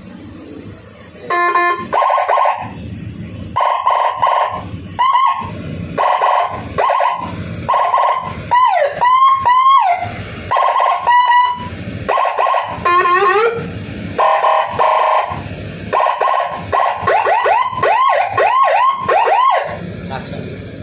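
Electronic police-escort (patwal) siren cycling through its custom tone patterns. It plays a buzzy blast, then short loud blasts about once a second, quick rising whoops, fast up-and-down yelps, and near the end a rapid run of rising-and-falling yelps.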